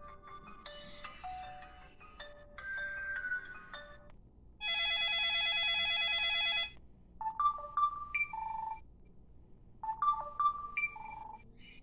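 Preloaded ringtones of a Samsung SCH-r270 mobile phone: a chiming melody winds down, then a warbling phone-ring trill sounds for about two seconds, then a short electronic jingle plays twice.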